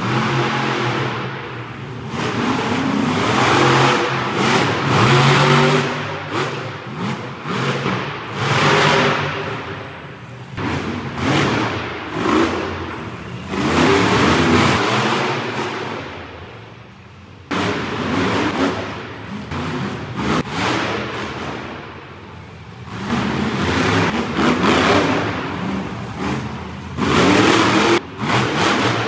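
Monster truck engines revving hard in repeated surges, each rising and falling every few seconds.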